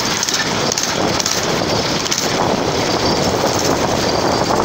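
Small engine of a homemade scrap go-kart running as the kart rolls along, a loud steady mechanical clatter. The drive chain is loose.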